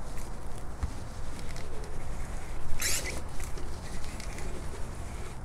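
Fluid transfer pump drawing engine oil out through its hose, with faint pattering and a short hiss about three seconds in.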